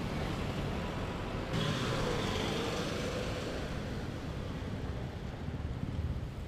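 Road traffic noise heard from a moving bicycle: a steady rumble of passing motor vehicles, growing a little louder about a second and a half in, with a faint engine note that rises and falls for a couple of seconds.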